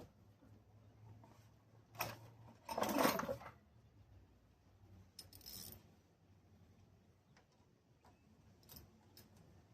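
Small metal parts and tools handled by hand: a few clinks and rubbing sounds, with a louder scraping rustle about three seconds in and light clicks near the end.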